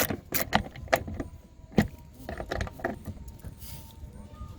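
Hand socket ratchet clicking in short, irregular strokes as a screw is driven in to fasten a plastic mud flap, with sharp metallic clicks that thin out after the first second or so.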